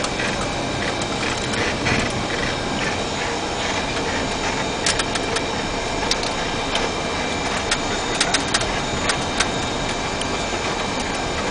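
Boeing 737 cockpit noise while taxiing: a steady rush of engine and airflow noise with a faint high whine. Several sharp clicks and rattles come between about five and nine seconds in.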